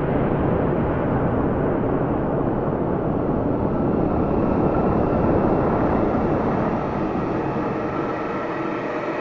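Steady, dense rumbling drone with a few faint held tones above it, typical of an ambient soundtrack laid over a time-lapse.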